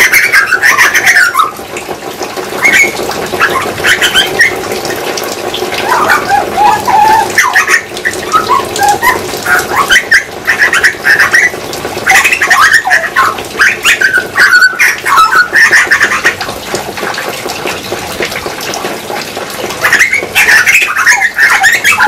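Grey butcherbirds singing close by: a run of varied, quickly changing warbled phrases with short pauses between them. The song eases off for a few seconds and then picks up again near the end.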